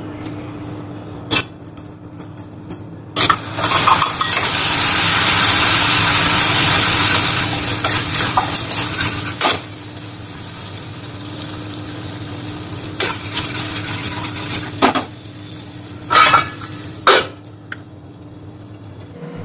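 Wet spice paste hitting hot oil in a kadhai: a loud sizzle that starts about three seconds in and slowly dies down over several seconds. A metal spatula clinks and scrapes against the pan during frying, with a few more clinks near the end as a glass lid goes on.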